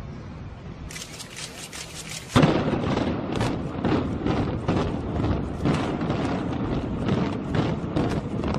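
Controlled demolition of several brick high-rise apartment blocks with explosive charges. Sharp cracks start about a second in, then a loud blast comes about two and a half seconds in, and a continuing string of cracking bangs follows over a low rumble as the buildings come down.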